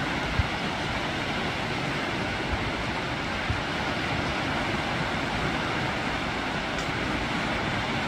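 Small Baltic Sea waves washing onto a sandy beach: a steady rush of surf, with wind buffeting the microphone in a few brief low thumps.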